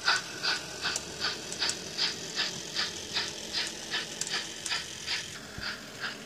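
Sound decoder of an N gauge Dapol Britannia model steam locomotive playing steady exhaust chuffs through its small speaker, about two and a half a second, growing slightly fainter toward the end.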